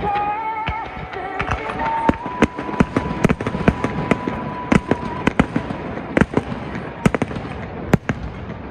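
Fireworks display, many shells bursting in quick, irregular succession as sharp bangs, some louder than others.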